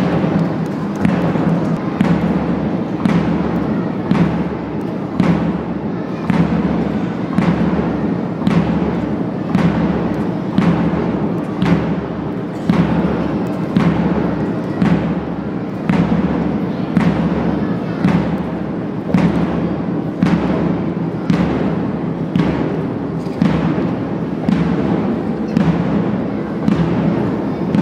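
Marching drum beat for a march past: even, heavy drum strokes somewhat faster than one a second, over a steady low hum.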